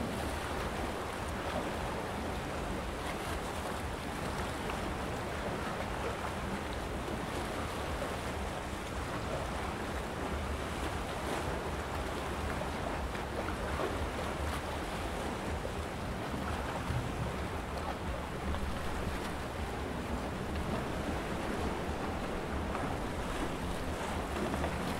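Sea waves washing against shoreline rocks, a steady wash with no separate breaks, under a low rumble of wind on the microphone.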